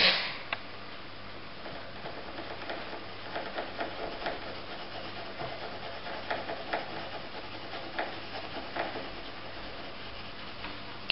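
Red coloured pencil scribbling back and forth on paper over a wooden tabletop: a scratchy rubbing in quick short strokes, colouring in an area. A short knock at the very start.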